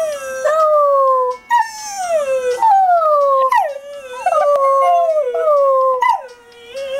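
Dog howling along to a cell phone ringtone: a run of long howls, each sliding down in pitch, one after another.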